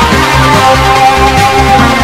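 Background music: an upbeat track with plucked guitar over a steady beat.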